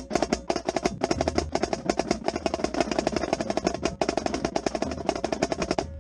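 Marching snare drum with a Remo Black Max head played close up in a fast, even run of stick strokes, with lower drums of the drumline playing underneath.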